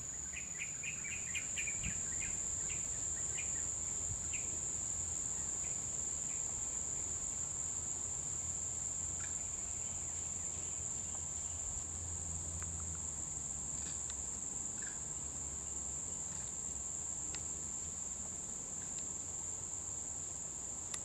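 Steady high-pitched drone of forest insects, such as cicadas or crickets. A quick run of chirps sounds in the first few seconds, and a few faint clicks follow later. The sound cuts off suddenly at the end.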